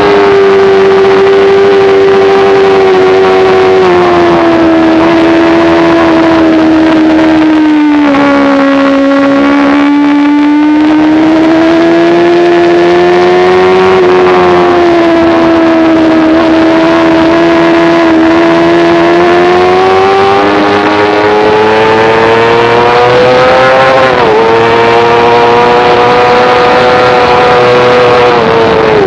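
Sport motorcycle engine at high revs on a racetrack, heard from on board. Its pitch sags and climbs through the corners, dipping lower around eight seconds in, with a quick break in the note about 24 seconds in. Wind rush runs under the engine note throughout.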